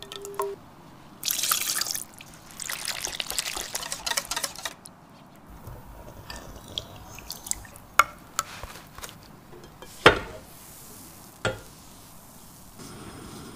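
Liquid being poured and splashing in two bursts over the first few seconds, followed by a few scattered clicks of kitchen utensils and one heavier knock about ten seconds in.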